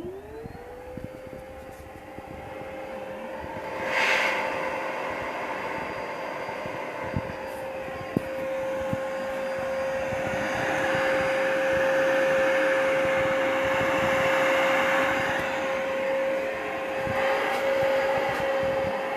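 A 1400-watt vacuum cleaner is switched on. Its motor spins up to a steady whine within the first second and then runs steadily, with a brief surge about four seconds in.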